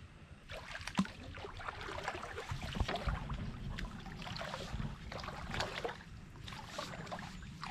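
Water sloshing and swishing around a small round tub boat as it is pushed along with a bamboo pole, in irregular washes over a low rumble. A single sharp knock comes about a second in.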